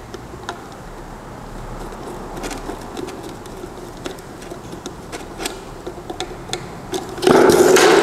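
Faint clicks and scrapes of a hand screwdriver driving a small screw into a camera mounting bracket. A sudden, much louder sound starts near the end.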